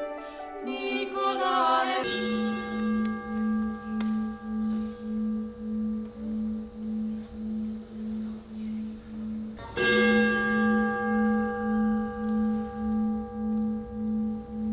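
Altar gong struck twice, about eight seconds apart. Each stroke rings on with a slow, regular pulsing as it fades. It is the consecration signal at Mass, marking the elevation of the host and then of the chalice.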